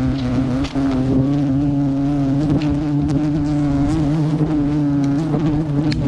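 Honeybees from a wild open comb buzzing right at the microphone: a steady droning hum that wavers slightly in pitch and breaks up near the end.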